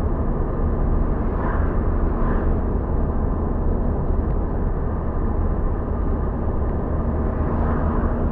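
Steady road and engine noise inside a moving car's cabin: a continuous low rumble of tyres and engine with a faint steady hum.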